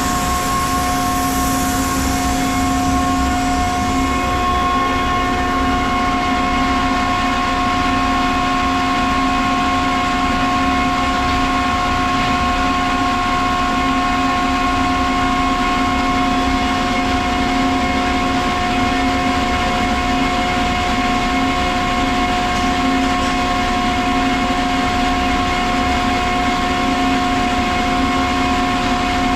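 Ingersoll Rand SSR-EPE50 50 hp air-cooled rotary screw air compressor running steadily, a constant machine whine of several tones over a broad rush of noise. A high hiss of air fades away over the first few seconds.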